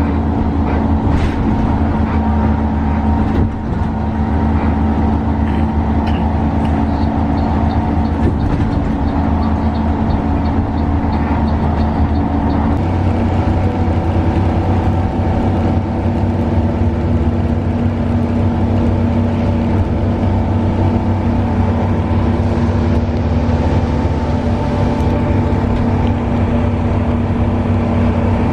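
Front-engined coach's diesel engine droning steadily at cruising speed, heard from inside the passenger cabin over road noise. The engine note shifts slightly about thirteen seconds in.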